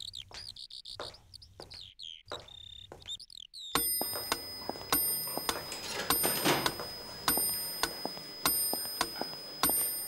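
Short chirps of small birds, then, after an abrupt change about four seconds in, a high-pitched bell struck over and over at an uneven pace, each strike ringing on.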